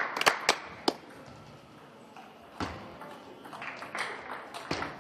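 Sharp clicks of a table tennis ball striking bats and table: a few quick ones near the start, then a quieter gap, with single clicks midway and near the end.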